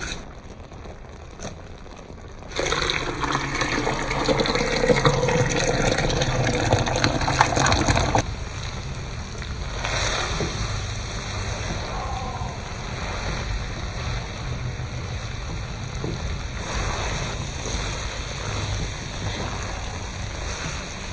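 Instant noodles cooking in a pan: a loud watery rush from about two and a half seconds in until about eight seconds, then a quieter steady cooking noise with the scraping of a wooden spatula stirring the noodles around the pan.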